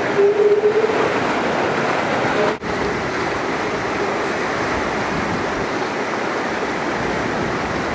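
Hurricane-force wind and wind-driven waves washing over a seawall, a steady rushing noise, with a faint whistle in the first second.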